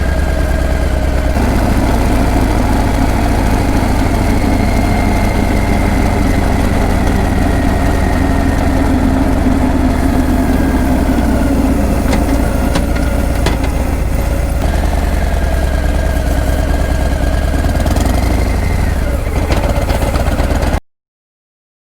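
Harley-Davidson Breakout's V-twin exhaust running steadily at low engine speed, its pitch drifting gently up and down. The sound cuts off abruptly about a second before the end.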